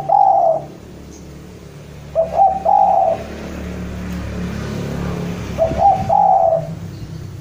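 Spotted dove cooing its song, a phrase repeated about every three seconds: a couple of short notes, then a longer coo. A low steady hum lies beneath and swells between the calls.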